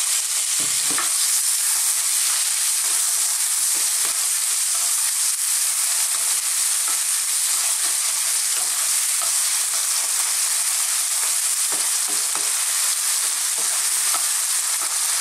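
Chopped white onion frying in hot corn oil with cumin and fennel seeds and garlic-ginger paste, stirred with a wooden spoon in a non-stick pan. A steady, high sizzle, with scattered light knocks and scrapes of the spoon against the pan.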